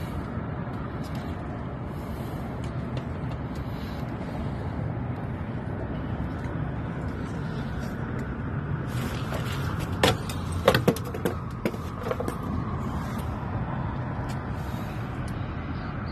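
Steady low rumble of outdoor background noise, with a short cluster of sharp knocks about ten to eleven seconds in.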